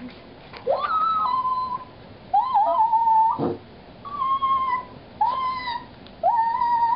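A dog whining and howling in five high-pitched calls, each about a second long, sliding up at the start and then holding steady. There is a short knock about halfway through.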